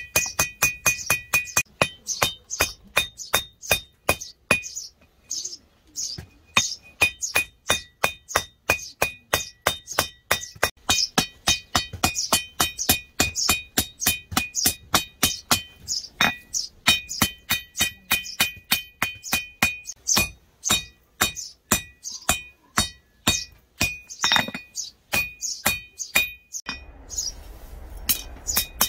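Hand hammer forging a drill-bit knife blade on an anvil: steady blows about three a second, many with a bright metallic anvil ring, with a short pause about five seconds in.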